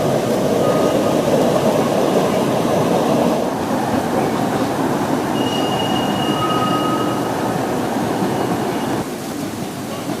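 A narrow-gauge park railway train hauled by the EA 02 battery-electric locomotive rolling along, with a steady rumble of wheels on rail and no engine note. A faint, thin wheel squeal comes in about halfway through, and the sound drops suddenly near the end.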